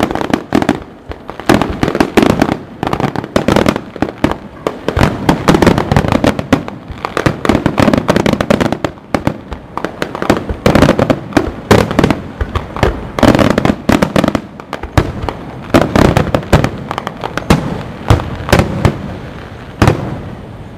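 Fireworks display: aerial shells bursting in a dense, rapid barrage of loud bangs and crackles with no pause.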